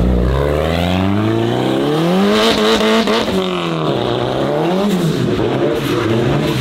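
Sports car engine being driven hard, revving up and easing off over and over, its pitch rising and falling about every two seconds as the car circles.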